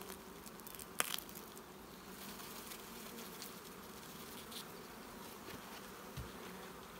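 Honeybees buzzing in a steady hum over an opened hive full of bees, with a single sharp click about a second in.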